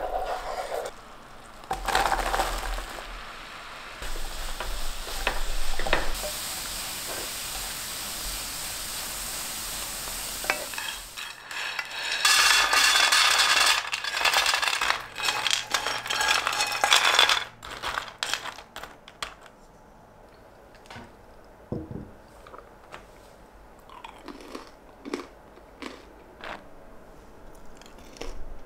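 Toasted bread cubes being stirred in a sizzling butter and maple-syrup caramel in a frying pan, with clinks of the utensil against the pan, loudest for several seconds past the middle. In the last third it turns much quieter, with scattered light clicks and taps as the coated cubes are handled on a wire cooling rack.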